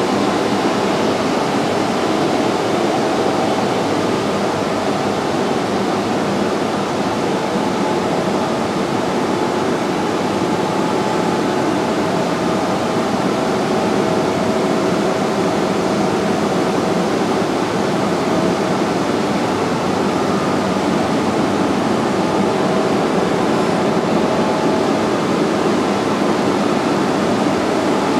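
Steady whir of cooling fans and air extraction from a row of digital cinema projectors vented through exhaust ducts, an even rushing noise with a faint steady hum in it that does not change.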